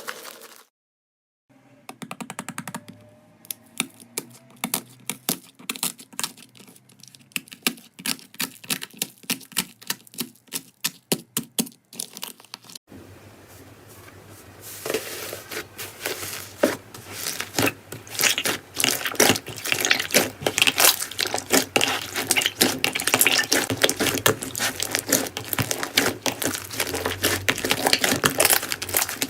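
Slime being squeezed and pressed by hand, giving fast sharp crackling and popping clicks. About halfway through it cuts to a second, louder and denser run of crackling.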